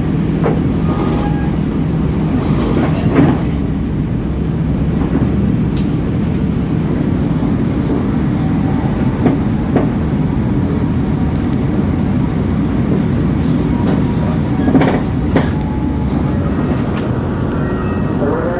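Steady rumble of a passenger train heard from inside an economy coach, with a few sharp clacks of the wheels over rail joints.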